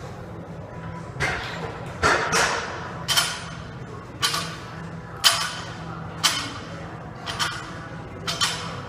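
A lifter's sharp, forceful breaths during a heavy barbell bench press, about one a second, each fading quickly, over a low steady hum.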